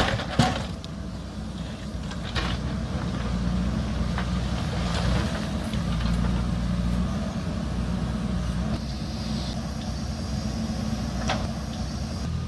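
JCB backhoe loader's diesel engine running steadily, with a few sharp knocks over it.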